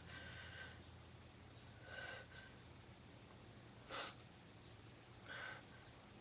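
A person's breathy gasps in a sneeze buildup, coming every couple of seconds, with one short sharp burst about four seconds in, the loudest sound.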